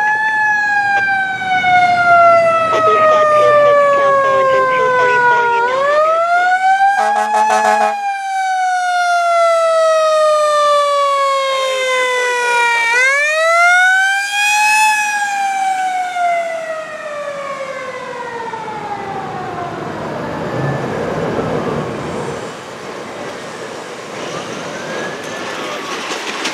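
Fire engine siren wailing: each cycle rises quickly and then falls slowly over about six seconds, with a short horn blast about seven seconds in. After the engine passes, about fourteen seconds in, the siren winds down and fades, with a fainter siren further off near the end.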